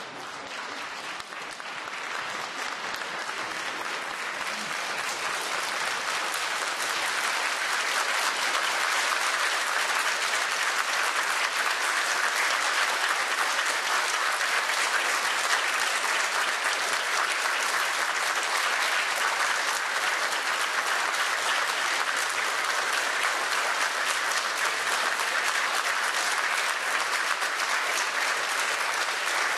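Audience applauding, the clapping swelling over the first several seconds and then holding steady.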